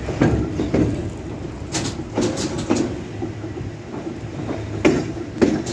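HÉV suburban electric train rolling slowly over the points, its wheels knocking and clacking unevenly over the rail joints and switch frogs, over a steady low hum from the running train.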